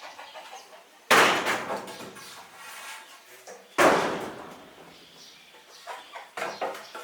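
Two loud bangs about two and a half seconds apart, each trailing off over about a second, like something being slammed or struck.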